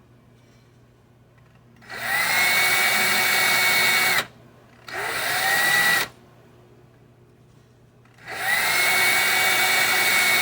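Cordless drill spinning a small brush to polish carbon off the washer door lock's electrical contacts, in three runs. Each starts with a whine rising as the motor spins up, then holds steady. The first run comes about two seconds in, a shorter one about five seconds in, and a longer one from about eight seconds in.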